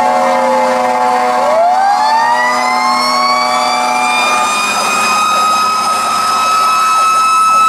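Federal Q mechanical fire siren coasting down in pitch, then spinning back up through about the next four seconds into a high, steady wail. A steady horn tone sounds over it for roughly the first half.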